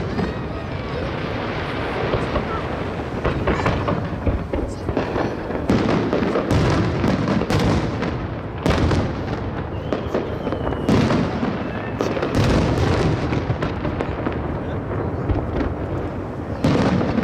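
Fireworks bursting over the sea: a steady run of booming shell bursts, several every few seconds, over continuous crackling.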